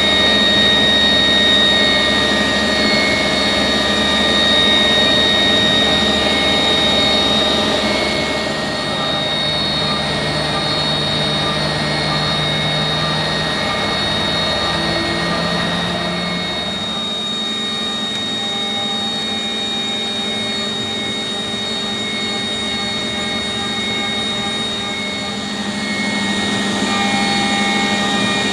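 5-axis CNC machining centre milling an A5052 aluminium block: a steady high spindle-and-cutter whine made of several constant tones over a rushing noise. About two-thirds of the way through, the low rumble drops away and the tone mix shifts as the cut changes.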